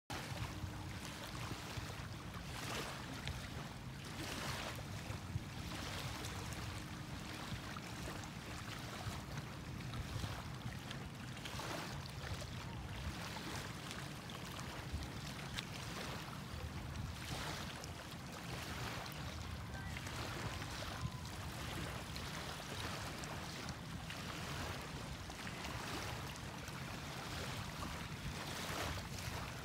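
Small waves on the bay washing against a sandy shore, the wash swelling and easing every second or two, over a steady low rumble of wind.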